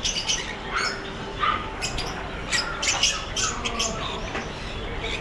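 Many small pet birds chirping and squawking at once, a busy stream of short overlapping high calls.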